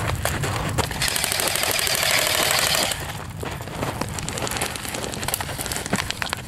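Airsoft electric gun firing one full-auto burst of about two seconds, starting about a second in: a rapid stream of clicks with a light motor whine. Before and after it, footsteps crunch on loose gravel.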